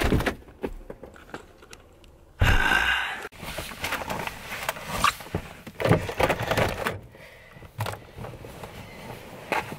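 A person clambering over a car's cloth seats: clothing and shoes rubbing and scuffing on the upholstery, with bumps and knocks. The loudest scuffle lasts about a second, starting some two and a half seconds in.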